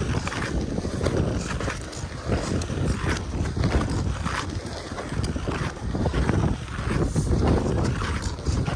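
Steel ice-skate blades scraping and gliding over hard natural black ice in repeated, rhythmic strokes, with a low wind rumble on the microphone.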